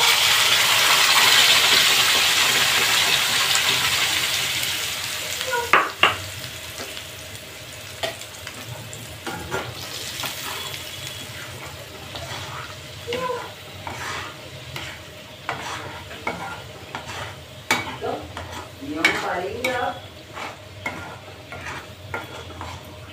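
Masala gravy paste poured into hot oil in a kadhai, sizzling loudly at first and dying down over about five seconds as it starts to fry. After that a metal spatula stirs and scrapes against the kadhai in irregular strokes, with a soft frying sizzle underneath.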